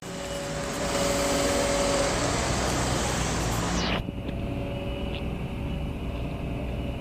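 Road traffic on a busy street: a loud rushing pass of a nearby vehicle with engine hum for about four seconds, which falls away sharply, then steadier, quieter traffic noise.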